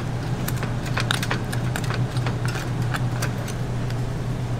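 Light clicks and clinks of kitchen utensils on metal, coming thick for the first three seconds or so and then thinning out, over the steady low hum of bakery equipment.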